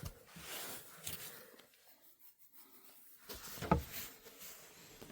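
Quiet handling noises of taken-apart television parts: faint rustling and small clicks, with one sharp knock about three and a half seconds in.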